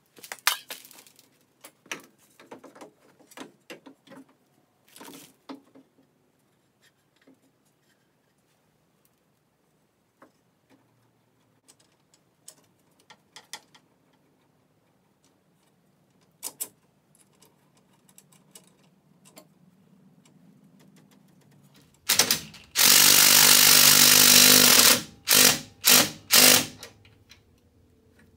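Cordless drill-driver running bolts in to fasten a radiator to the frame: one steady run of about two seconds near the end, then three short bursts as the bolts seat. Earlier, scattered clanks and knocks of metal parts being handled and fitted.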